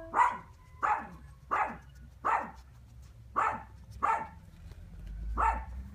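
A dog barking, seven sharp barks in a row, about one every 0.7 seconds with a slightly longer pause before the last.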